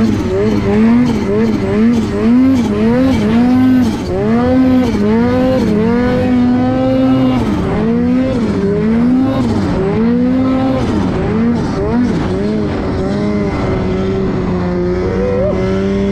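Turbocharged Ski-Doo snowmobile engine revving up and down again and again as the sled is ridden through powder, then holding a steadier pitch for the last few seconds.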